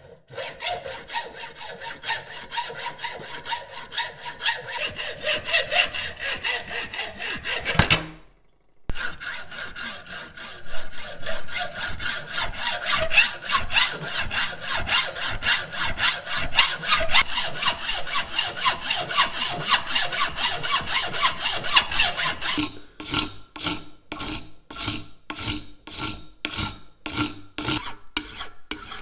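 Hand hacksaw cutting metal stock clamped in a bench vise, in quick regular strokes, with a brief break about 8 seconds in. About 22 seconds in it gives way to a hand file, drawn across the metal in slower rasping strokes about two a second.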